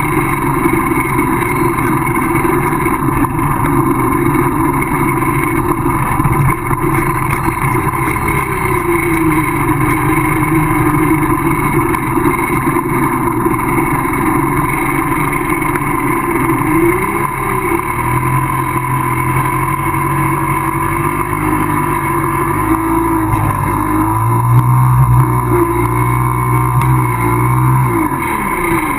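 Minsk two-stroke motorcycle engine running at low speed, its pitch rising and falling several times as the throttle is worked. In the last ten seconds or so a deeper, steadier note takes over.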